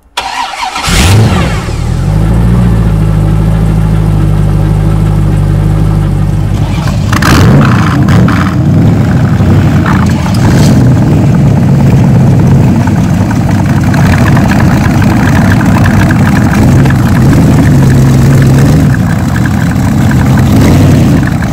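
Boss Hoss V8 motorcycle engine cranked and fired about a second in with a quick rev, then settling into a steady, loud idle. From about seven seconds in, more V8 bikes start and rev around it, so several engines idle together, with a brief rise in revs later on.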